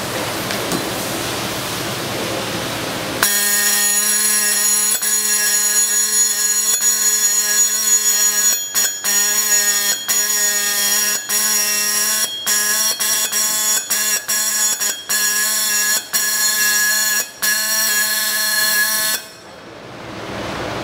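Dot-peen marking machine's stylus pin hammering on the rim of a metal flange, giving a steady buzzing tone. It starts about three seconds in, breaks off briefly many times between characters, and stops shortly before the end.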